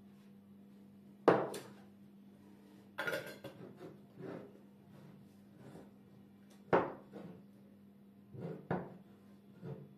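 A glass jar and a drinking glass being handled on a wooden cutting board. Sharp knocks and clinks of glass set down on wood come about a second in, near the middle and twice near the end, mixed with the scraping and clicking of a metal screw lid going onto the jar. A steady low hum runs underneath.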